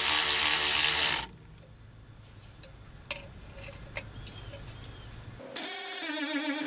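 Milwaukee cordless electric ratchet running, chasing the threads in the bolt holes of a truck's pinion yoke. It runs for about a second and stops, leaving a few light clicks. It starts again near the end, its whine wavering as it bites.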